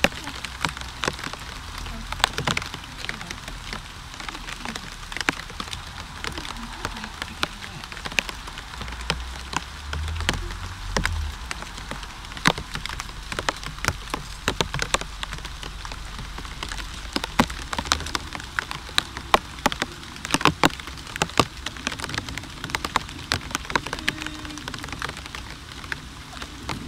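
Rain falling, with many sharp, irregular drop strikes close by over a steady hiss.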